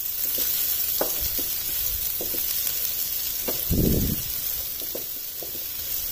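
Finely chopped onion sizzling in a few tablespoons of hot oil in a nonstick frying pan, stirred with a wooden spatula that taps and scrapes against the pan; one louder dull bump a little past the middle.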